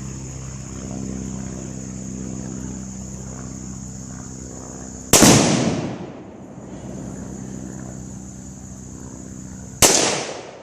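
Two loud metal slams about five seconds apart in a cargo work van, each ringing off briefly, over a steady low hum.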